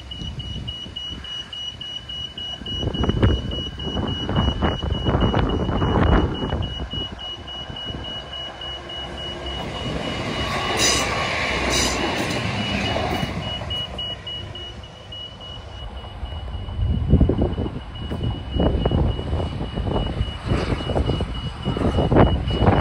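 Transwa Australind diesel railcar approaching and passing close by about halfway through, its engine and wheels swelling to a peak and then fading as it runs on. A steady high electronic warning tone sounds through most of it.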